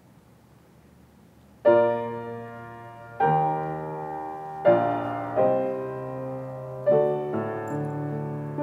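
Grand piano begins playing after about a second and a half of quiet: slow, full chords, six in all, each struck and left to ring before the next.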